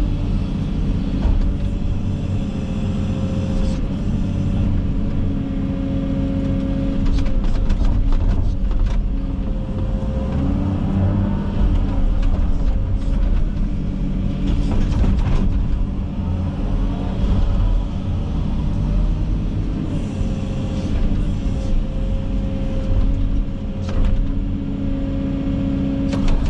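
Komatsu 360 excavator's diesel engine running under load with a whine that shifts up and down in pitch as the machine works, and scattered sharp cracks and snaps of brush being pushed over and broken.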